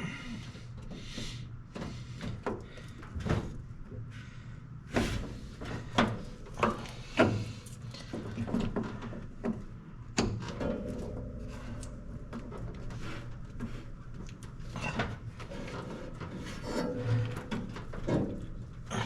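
Truck wiring bulkhead connector being handled and pushed back into place by hand: irregular clicks, taps and knocks, the loudest few about six to seven seconds in.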